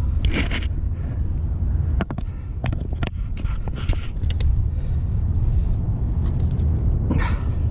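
Steady low rumble of wind buffeting the camera's microphone, with a few light knocks and clicks from handling gear in the kayak.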